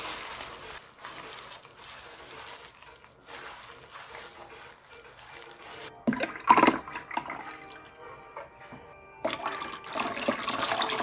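Liquid splashing into a glass bowl: juice running as a cloth bag of blended ingredients is squeezed, then a loud splash about six seconds in as thick rice-flour porridge is poured in, and water poured in steadily from about nine seconds.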